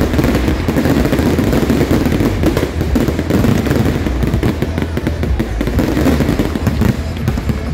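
Fireworks display at full barrage: a dense, unbroken stream of rapid bangs and crackling from many shells and ground effects going off at once.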